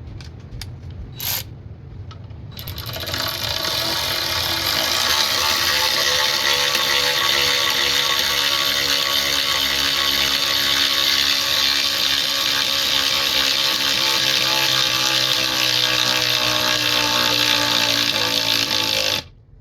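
A cordless 3/8" electric ratchet, its motor and gearhead running continuously for about sixteen seconds as it drives a bolt into a 2x6 board, then stopping suddenly near the end. A short click comes just before it starts.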